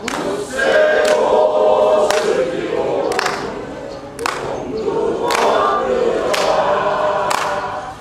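A group of adults singing their elementary school's song together, with sharp hand claps about once a second keeping the beat.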